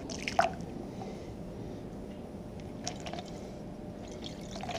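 Distilled water poured from a plastic gallon jug through a funnel into a motorcycle's coolant reservoir: a quiet liquid trickle with a few short splashes or knocks, the sharpest about half a second in.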